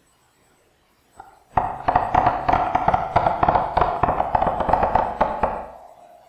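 A recorded hand clap, copied onto three staggered tracks, played back through Audacity's GVerb reverb as a home-made applause effect. It comes in as a dense clatter of sharp clap-like hits over a ringing hum, starting about a second and a half in and dying away near the end.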